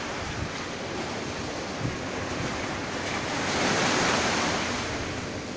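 Ocean surf washing onto the beach, a steady rush that swells into a louder breaking wave about three and a half seconds in.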